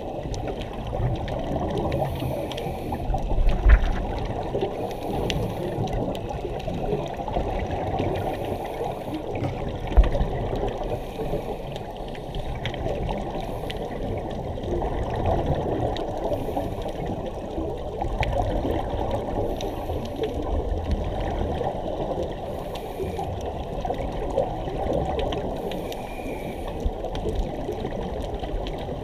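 Muffled underwater sound through a camera's waterproof housing: a steady rush of water and bubbling from scuba divers' breathing. Two dull knocks, a few seconds in and again about ten seconds in.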